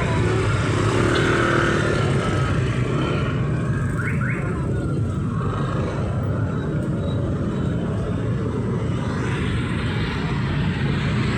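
Urban street traffic: a steady rumble of passing cars and motorcycles, with two short high chirps about four seconds in.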